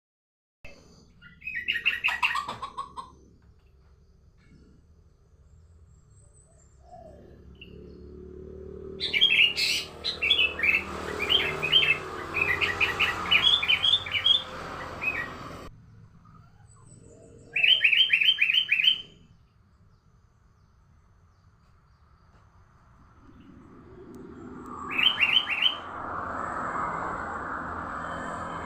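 Sooty-headed bulbul (kutilang) calling in four bouts of quick, chattering high notes with pauses between them, over a rushing background noise that swells in the middle and again near the end.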